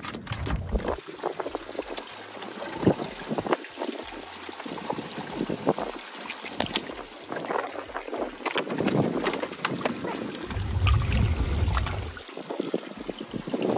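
Wind buffeting the microphone in gusts, with scattered sharp clicks and knocks and some trickling water.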